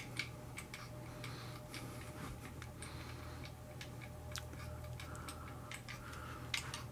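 Faint scattered light clicks of a plastic 1/24 slot car being handled on its track, over a low steady hum.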